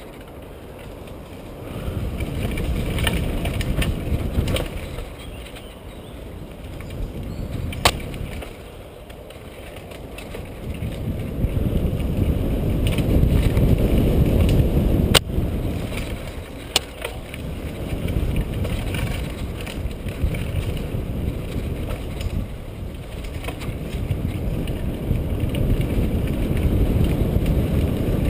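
A mountain bike being ridden fast along a dirt trail, heard from a camera carried on the bike or rider. There is a low rumbling rush of tyres and air that swells and fades with speed, and a few sharp clicks and knocks of the bike over bumps, the sharpest about halfway through.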